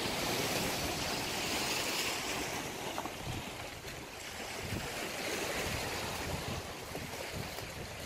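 Sea surf washing onto a rocky shingle shore in a steady wash, with wind buffeting the microphone in low, uneven rumbles.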